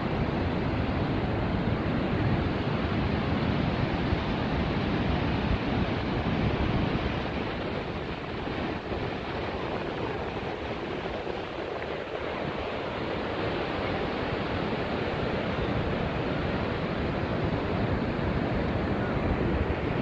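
Steady wash of ocean surf breaking on a sandy beach, mixed with wind buffeting the microphone. It eases off a little for a few seconds in the middle.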